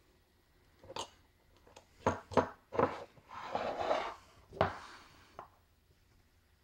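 A small glass bottle of liquid plastic cement and its brush cap being handled and set aside on a table: a string of sharp knocks and clinks, with a short rubbing scrape in the middle.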